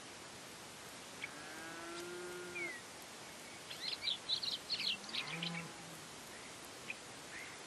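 Wild animal calls over a steady outdoor hiss: a single held call about a second in, then a quick run of high chirps in the middle, and a few isolated chirps near the end.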